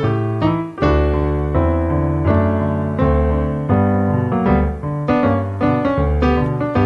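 Solo piano playing a postlude: chords over a moving bass line, a new chord struck about every half second to second and left to ring.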